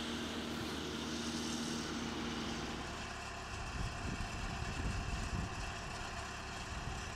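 Engine of a drilling rig running steadily at a work site. It hums evenly at first, then about three seconds in changes to a lower, rougher sound.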